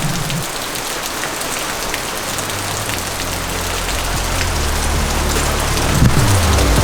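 Heavy rain falling steadily, a dense hiss with fine drop ticks. Low steady music comes in under it about halfway and grows louder toward the end.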